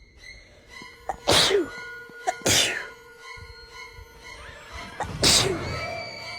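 A person sneezing three times in quick succession, about a second in, two and a half seconds in and five seconds in, over background music.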